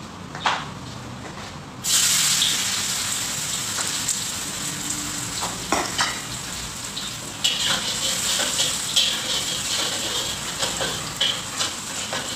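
Hot oil in a wok sizzles loudly as food goes in about two seconds in, then keeps frying steadily. From the middle onward a metal utensil clinks and scrapes against the wok as the food is stirred.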